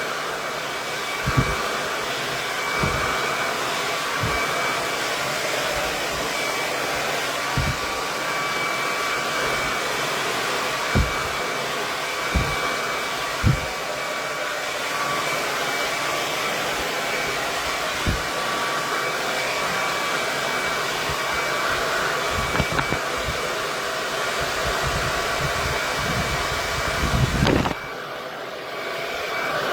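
KISS 1875-watt tourmaline ceramic hair dryer blowing steadily: a constant rush of air with a faint motor whine, broken by scattered short low thumps. The sound dips briefly near the end, then comes back.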